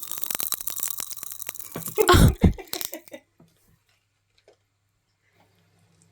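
Popping candy crackling and fizzing in an open mouth held close to the microphone, a dense rapid crackle. About two seconds in comes a loud, short cough, and then it goes quiet.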